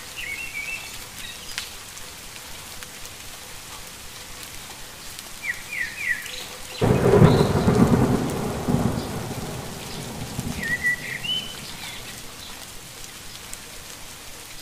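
Steady heavy rain with a sudden loud thunderclap about seven seconds in that rumbles away over a few seconds. A few short high chirps sound now and then.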